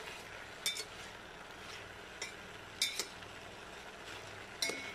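A metal slotted spoon scraping and clinking against a stainless-steel pot as diced potatoes are stirred in hot oil, with several sharp, irregular clinks. The oil sizzles softly underneath.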